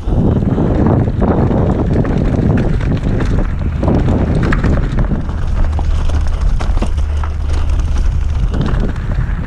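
Wind buffeting the microphone of a mountain bike riding fast down a dirt trail, with the tyres rolling over the ground and short knocks and rattles as the bike hits bumps.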